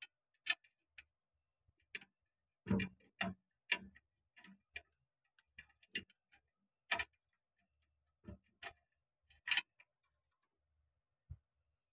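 Irregular metal clicks and knocks as the release fingers and pins of a John Deere 5310 clutch pressure-plate assembly are handled and seated by hand. A quick cluster comes about three seconds in, with single sharp clicks scattered through the rest.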